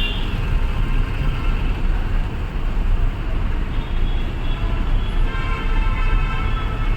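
Congested city-street traffic: vehicle engines running in slow, heavy traffic, with a held tone of several pitches joining about four seconds in.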